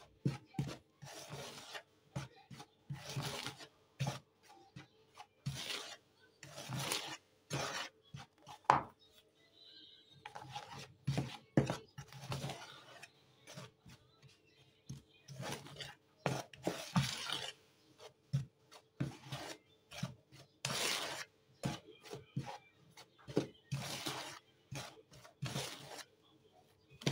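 A small metal whisk stirring dry flour mix in a plastic bowl: irregular scraping strokes with short pauses between them.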